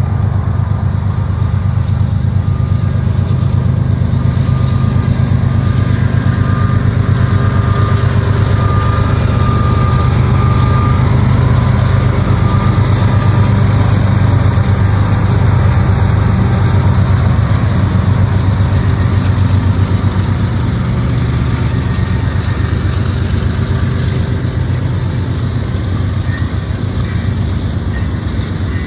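A CSX freight train passing close, led by GE ES40DC and CM44AH diesel locomotives whose engines run loud and deep. About twenty seconds in the engine sound eases as the loaded rock hopper cars roll by.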